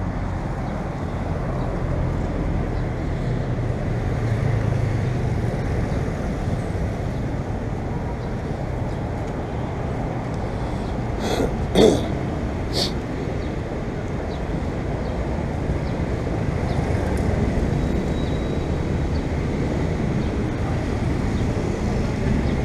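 Steady traffic noise from cars and motorcycles on a busy city road, with a few short sharp clicks around the middle, the loudest about halfway through.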